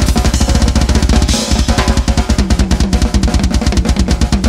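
Drum kit played fast in a death-metal drum solo: a dense barrage of rapid bass drum strokes with snare and tom hits. The bass drum drops out briefly about a second and a half in, and a cymbal crash rings just after.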